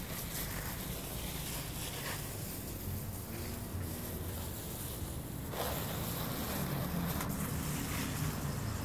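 Wind on the phone's microphone: a steady low rumble and hiss that grows a little louder about halfway through, with a few faint rustles.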